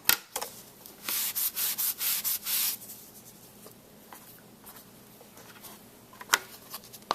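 Anti-static bag being rubbed back and forth over cardstock, a few quick hissing strokes about a second in, preparing the paper so embossing powder will not stick where it is not wanted.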